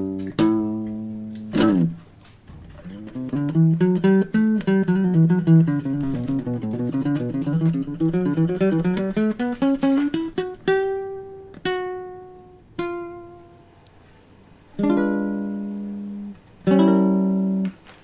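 Solo acoustic guitar music. A quick run of plucked notes sweeps down and back up in pitch, then a few single notes are left to ring, and after a short pause two strummed chords sound near the end.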